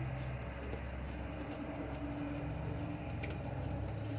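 Quiet garage room tone: a steady low electrical hum, a faint high chirp repeating roughly every half second, and a few light clicks from hand tools working on the engine bolts.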